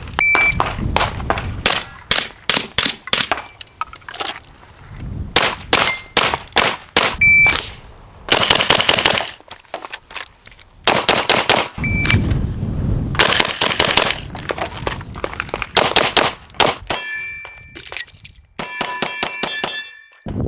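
Gunfire in quick strings of shots during timed drills, with steel targets clanging and ringing from hits, most densely near the end. A short high beep sounds a few times between strings.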